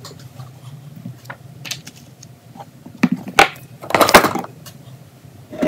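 Handling noise from a hand on the recording device. Faint taps and rustles are followed by a few sharp knocks about three seconds in, then a loud rubbing and scraping against the microphone near four seconds.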